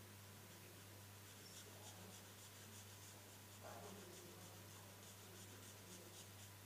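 Black felt-tip marker scratching on paper in quick repeated strokes, about three a second, as it fills in an area with ink. It is faint, over a low steady hum, with a brief falling squeak about halfway through.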